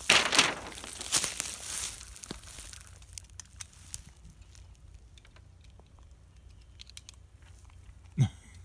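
Footsteps crunching through dry leaves and grass, loudest and crackling in the first two seconds, then fainter scattered crackles; a single dull thump near the end.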